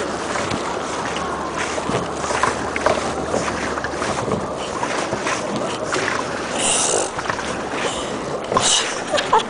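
Steady rushing noise of a jet ski ride, water and engine mixed with wind buffeting the microphone, with two louder bursts of hiss about seven and nine seconds in.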